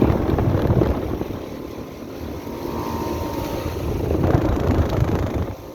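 American Standard central air-conditioning condensing unit running, its condenser fan and compressor making a steady rumbling whoosh. The sound drops suddenly near the end.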